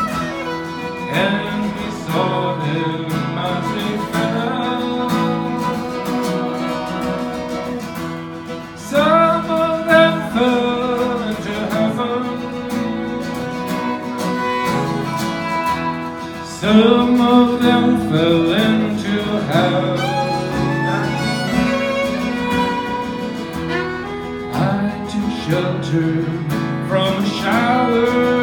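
Live acoustic guitar strumming with a fiddle playing a melody over it, and a man singing into a microphone.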